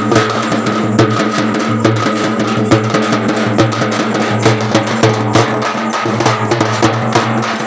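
Drums beaten hard and fast for a procession, many sharp strikes in a quick, uneven rhythm over a steady low hum.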